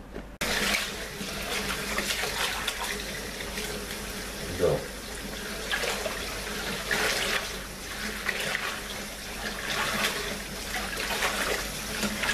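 Tap water running into a stainless steel bowl in a sink, with hands swishing and splashing a bunch of cilantro through the water to rinse it. The running water starts abruptly about half a second in.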